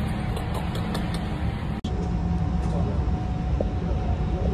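Steady low rumble with a faint, even hum above it, broken by a split-second dropout about two seconds in.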